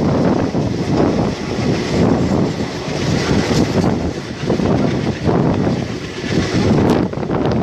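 Wind buffeting a microphone held outside a moving passenger train, in uneven gusts over the train's running noise on the track.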